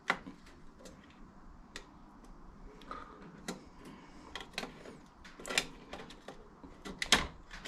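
Scattered light clicks and taps of hands working over the opened phase converter's internal parts and wiring, the sharpest right at the start and about seven seconds in.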